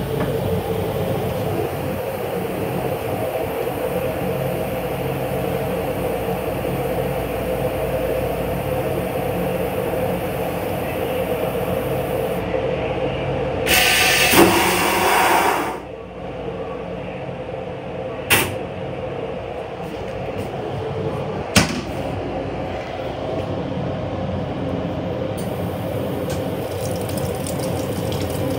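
Steady rumble and hum of an M8 railcar under way, heard inside its restroom. About fourteen seconds in, the toilet flushes in a loud rush lasting about two seconds, followed later by two sharp clicks.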